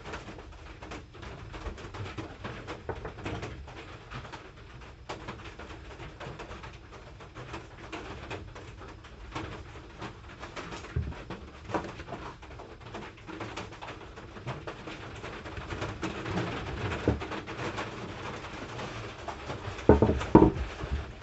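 Quiet handling of tools on a wooden board: light clicks and knocks as the tools are picked up and set down, with a louder clatter near the end.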